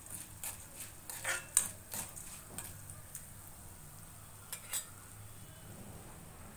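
Flat metal spatula scraping and tapping against a black kadai as dry-roasting dals and spices are stirred. A quick run of scrapes and clicks comes over the first few seconds. Two more clicks follow a little past the middle, then only a faint low hum.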